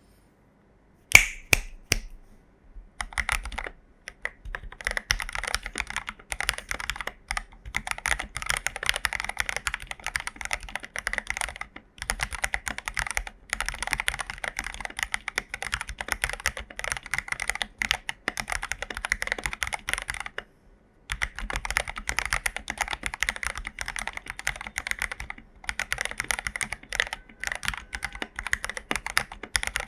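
Typing on an AKKO 5075B mechanical keyboard fitted with lubed Jelly Black linear switches. A few separate key strikes come about a second in, then fast continuous typing with brief pauses about twelve and twenty-one seconds in.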